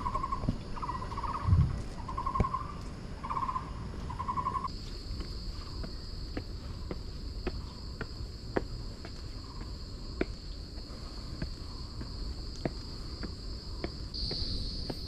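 Insects chirping in a forest: trilled chirps repeating a little more than once a second, giving way about a third of the way in to a steady high-pitched insect drone. Footsteps on the trail sound as regular light clicks, a bit more than one a second.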